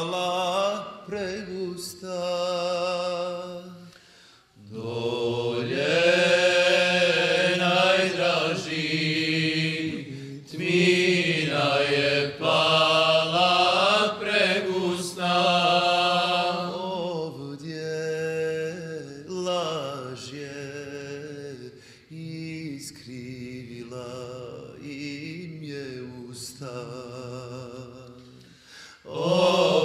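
Male voices singing a slow Bosnian ilahija (Islamic devotional hymn), a drawn-out melody with long held notes and wavering ornaments, with a brief break about four seconds in.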